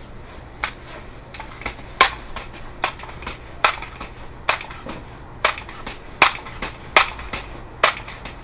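A rapid run of sharp metallic clicks, about two a second and unevenly spaced, from an air rifle's action being handled and worked.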